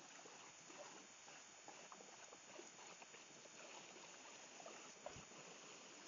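A small stream running over rocks, a faint steady rush of water, with scattered small ticks and a soft knock about five seconds in.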